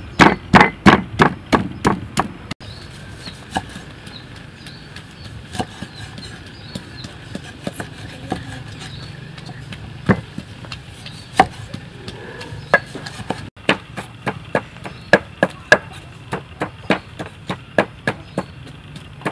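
Wooden pestle pounding in a wooden mortar and a knife cutting limes on a wooden chopping board. There is a quick run of heavy thuds at the start, scattered knife knocks in the middle, and steadier, regular pounding strikes toward the end.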